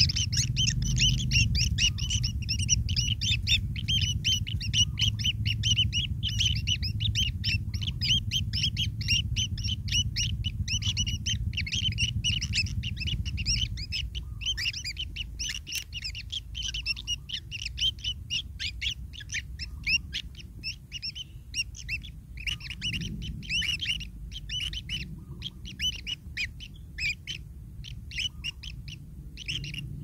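Kingfisher nestlings begging in the nest burrow: a rapid, continuous stream of short high chirps that thins to scattered calls about halfway through. A low rumble runs underneath and fades at the same point.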